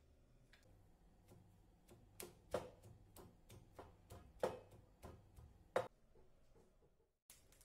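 A stone pestle knocking in a stone mortar as it pounds freshly cut coriander leaves: a run of uneven knocks, a few faint snips at first, the loudest about two and a half, four and a half and six seconds in.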